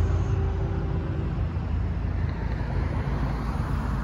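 Cars driving past at close range: a steady low rumble of road traffic, with an engine hum during the first second.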